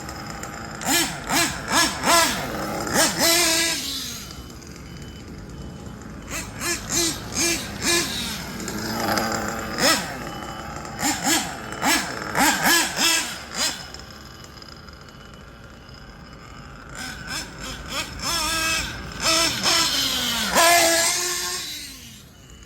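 Kyosho Inferno NEO ST 3.0 nitro RC truggy's glow engine revving in bursts of short throttle blips, each rising and falling in pitch. Between the bursts are quieter stretches where the engine runs nearer idle.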